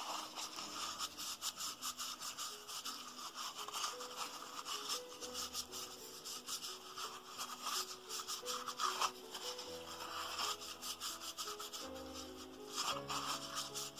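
A tissue rubbing round the inside of the stainless-steel body of a Comandante C40 hand coffee grinder in quick, repeated wiping strokes. Soft background music with slow held notes plays under it.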